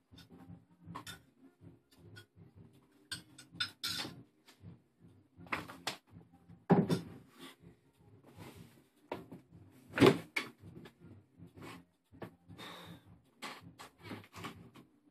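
Irregular clicks, knocks and short rustles, with two louder knocks about halfway through.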